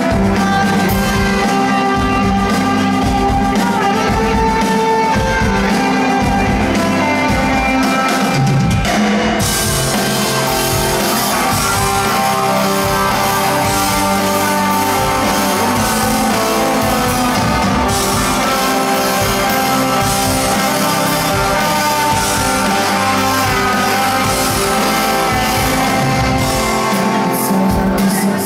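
A live rock band plays at full volume: electric guitars over a drum kit. The cymbals and full drums come in strongly about nine seconds in.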